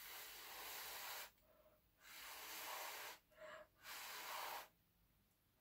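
Air blown in puffs through a straw onto wet acrylic paint, pushing the paint outward to open a bloom: three long blows of about a second each and one short one, with pauses between.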